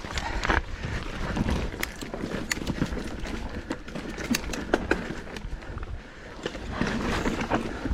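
Footsteps crunching on a dry, loose dirt trail as a rider walks a mountain bike, with irregular clicks and knocks from the bike and ground.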